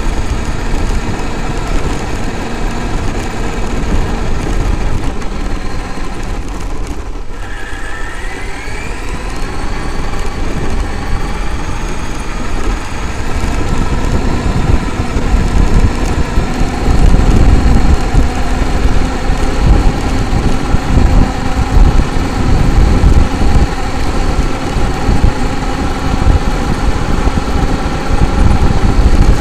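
Onboard sound of a Traxxas X-Maxx RC monster truck driving: the whine of its electric motor and drivetrain over the rumble and rattle of the chassis on rough ground. The whine drops off about seven seconds in, then rises again as it speeds up. The running gets louder and rougher in the second half.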